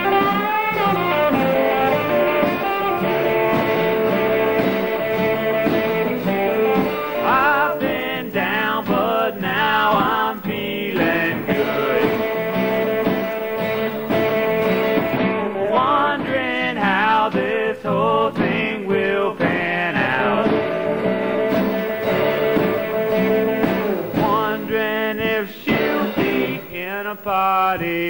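Outro song: a singing voice over guitar and band accompaniment, with sung phrases coming and going over the steady backing.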